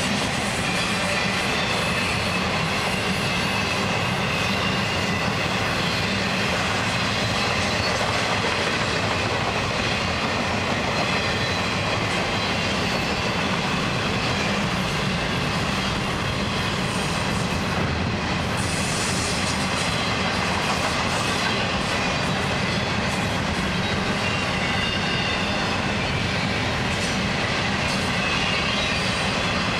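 Florida East Coast Railway intermodal freight cars (double-stack container cars and trailer flatcars) rolling steadily past: continuous noise of steel wheels on rail with clickety-clack over the joints and a faint, high wheel squeal coming and going.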